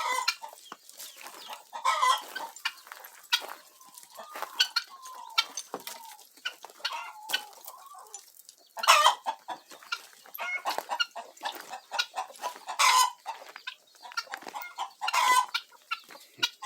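A flock of helmeted guinea fowl calling with harsh, repeated, overlapping cries. Loud calls stand out about nine, thirteen and fifteen seconds in.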